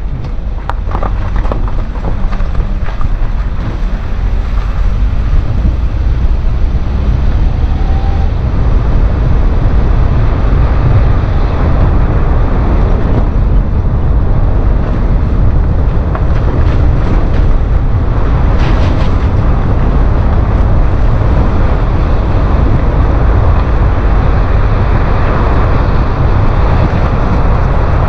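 Steady rumble of a car driving, with road and wind noise heaviest in the low end. It grows louder over the first several seconds as the car picks up speed.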